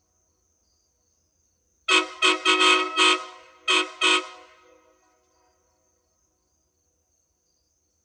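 Nathan 139K K5LA five-chime locomotive air horn, its 3A and 4A bells fitted with 3D-printed shims to make it a straight K5L, sounded about two seconds in as five blasts of its chord: two short, one longer, then two more short. The chord trails off briefly after the last blast.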